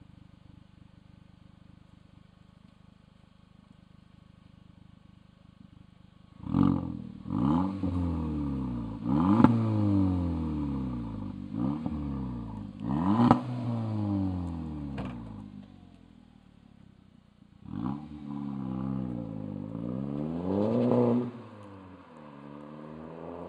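Audi TT 1.8-litre four-cylinder engine through an aftermarket sport exhaust, idling quietly for about six seconds, then revved in about five quick blips that each rise sharply and fall back. Near the end it is revved more slowly up to a higher peak, then drops back to idle.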